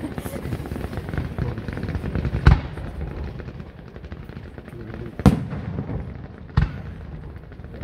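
Fireworks display: a steady rapid crackling of firework effects, broken by three louder single bangs of bursting shells, the last two about a second apart.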